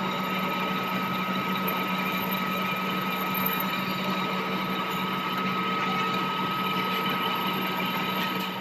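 Metal lathe running steadily while its cutting tool turns a metal sleeve, peeling off curled chips: a steady hum with a constant high-pitched whine over it.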